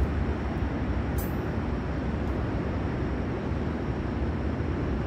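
Steady low rumbling noise with an uneven flutter in the bass, and one faint click about a second in.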